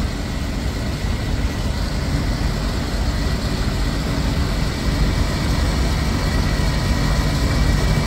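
Blue Bird Wanderlodge motorhome under way at road speed, heard from inside the cab: a steady deep engine drone mixed with road and wind noise, with a faint thin whine above it.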